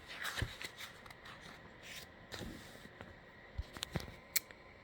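Faint paper rustling and handling noise of a picture book's page being turned, with a few sharp clicks near the end.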